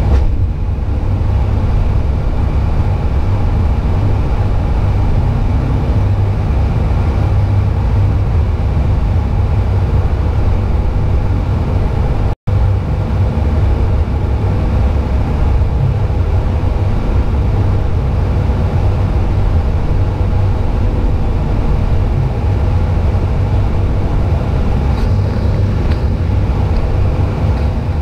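Steady low rumble of engine and road noise inside a car's cabin while driving at highway speed. The sound cuts out for an instant about twelve seconds in.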